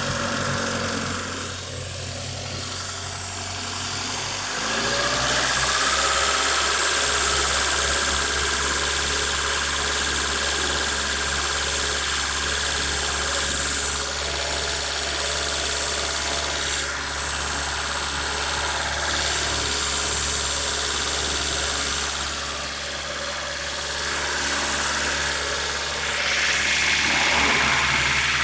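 Honda Civic D16 four-cylinder engine idling, with a steady high hiss over it: the classic sound of a vacuum leak, here at the throttle body gasket. The idle shifts about four to five seconds in, then holds steady.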